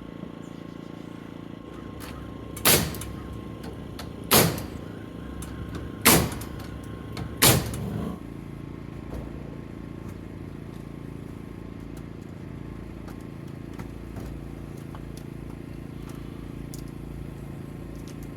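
Four loud wooden knocks, about a second and a half apart, as 2x6 lumber rafters are tossed up and dropped onto the roof framing. A steady low machine hum runs underneath.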